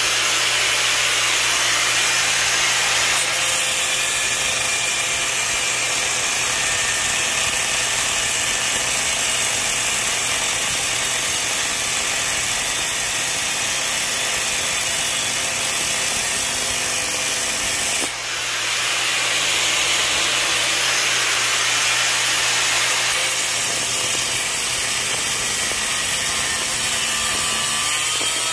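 Angle grinder with an abrasive cut-off wheel cutting through cast iron drain pipe, a steady grinding whine that drops briefly about 18 seconds in and then carries on.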